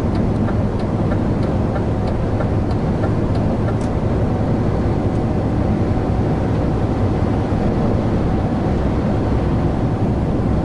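Steady engine and road noise inside a lorry's cab while driving, with a run of light ticks about twice a second in the first few seconds.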